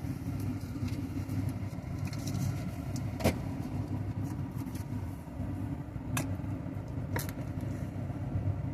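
Steady low engine rumble from a motor vehicle or machine, with three short sharp knocks about three, six and seven seconds in.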